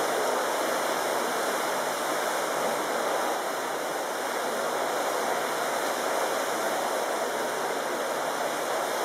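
Indoor swimming-pool hall ambience: a steady, even wash of noise, water and the echoing hall blended together, with nothing standing out.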